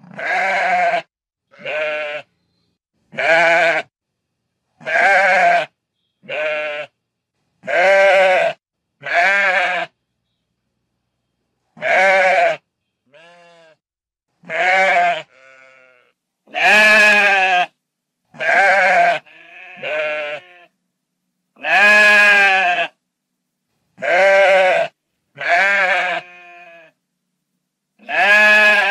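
Sheep bleating: a series of about eighteen separate bleats, one every second or two, each with a wavering, quavering pitch. A few of the bleats are much fainter, and there is dead silence between calls.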